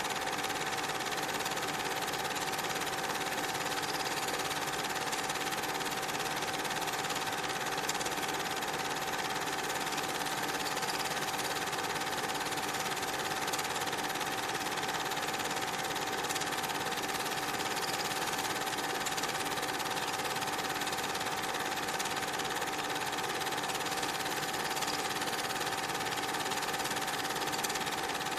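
Steady mechanical whirring and clatter of a cine film projector running, with a constant whine.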